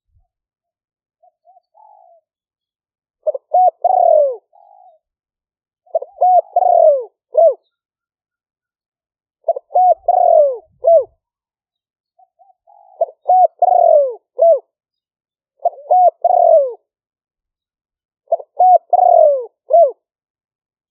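Spotted dove cooing: a faint short call near the start, then six phrases of several quick coos, one every two to three seconds, with dead silence between them where background noise has been cut out. It is a recorded decoy call used to lure wild spotted doves.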